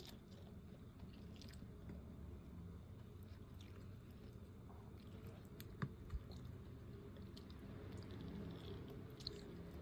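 Faint chewing of a mouthful of rice and smoked fish eaten by hand, with small mouth and plate clicks and two sharper ticks about six seconds in.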